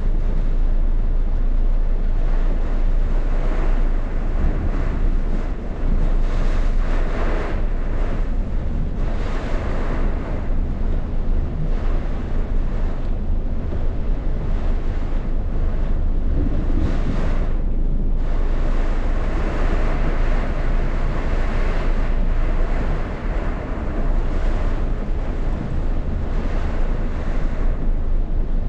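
Rainstorm: a dense hiss of rain with gusting wind that swells and eases every second or two, and wind buffeting the microphone with a heavy low rumble.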